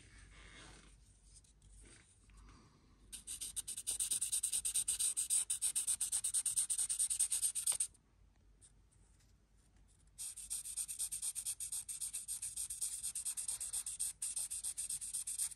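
Felt-tip marker scribbling rapidly back and forth over the stamped engine-number pad on the cast engine block, a dry scratchy rubbing in two spells of about five seconds each, the first starting about three seconds in and the second about ten seconds in.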